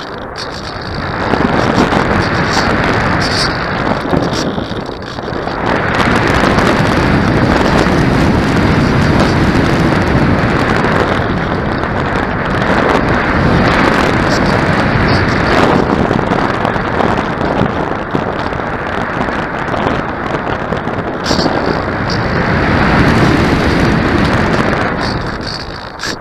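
Wind buffeting the microphone: a loud rushing noise with no steady pitch that swells and eases in gusts, dropping briefly about five seconds in.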